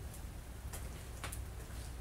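A handful of light, irregularly spaced clicks over a low steady hum.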